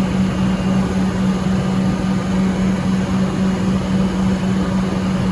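Comeng electric train at the platform giving a loud, steady electrical hum: one constant low tone over a wide even noise, with no change in pitch.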